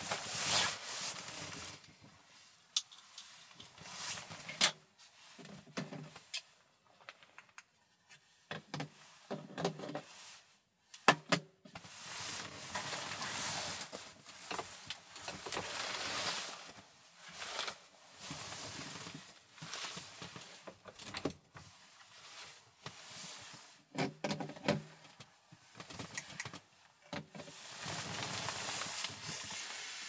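Sleeping bag and jacket fabric rustling and swishing in irregular bursts as a person shifts in bed and reaches up, with a few soft knocks and sharp clicks, the loudest about eleven seconds in.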